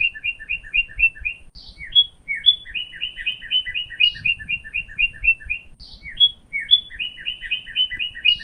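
A songbird singing the same phrase over and over: one or two clear lead-in notes, then a fast run of two-note chirps, about six a second. The phrase comes back about every four seconds.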